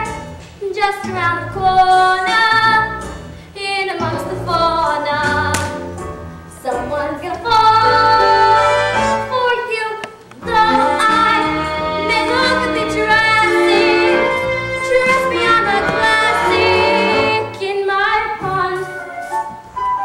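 A song from a stage musical sung by a young cast, led by a female voice over instrumental accompaniment, with held and gliding sung notes.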